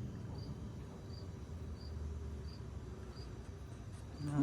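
An insect, most likely a cricket, chirping in short, high, evenly spaced pulses, about three chirps every two seconds, over a low steady background hum.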